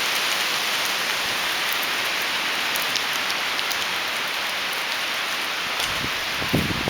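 Gale-force wind rushing through the crowns of tall trees, Douglas fir among them, as a steady hiss with a few faint ticks of debris. Near the end, gusts buffet the microphone and add a low rumble.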